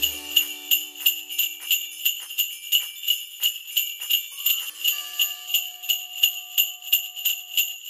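Sleigh bells jingling in a steady shaking rhythm, about four shakes a second, a sleigh-ride effect. A couple of soft held notes sound underneath from about five seconds in.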